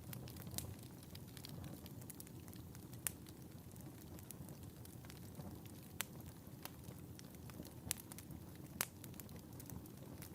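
Wood fire burning in a fireplace: a steady low rumble of flames with scattered sharp crackles and pops, a few louder snaps at irregular intervals.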